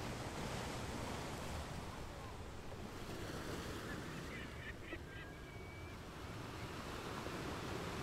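Ocean surf as a steady, even wash of noise, with a short bird call about halfway through.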